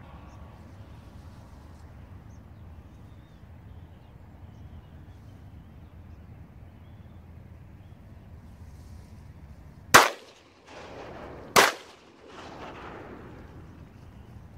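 Two shotgun shots about a second and a half apart, each a sharp crack followed by a rolling echo, over a low steady background rumble.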